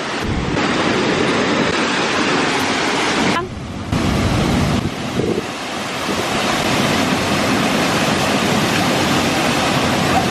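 Waterfall and river water rushing: a loud, steady wash of noise that drops briefly about three and a half seconds in, then carries on.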